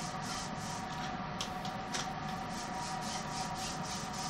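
Fingers rubbing back and forth over a fresh diamond polishing pad as it is smoothed onto a polisher's platen to press out air bubbles: a quick, even rhythm of soft swishing strokes over a faint steady hum.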